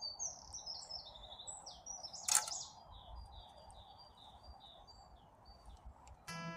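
Wild birds singing: a quick series of short, high chirps, many falling in pitch, with a single sharp click about two seconds in.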